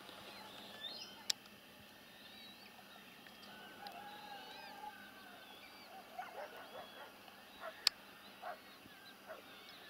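Waterbirds calling faintly across an open lake, with small birds chirping high over a faint background hiss. Several short, lower calls come in the second half. Two sharp clicks, about a second in and again about eight seconds in, are the loudest sounds.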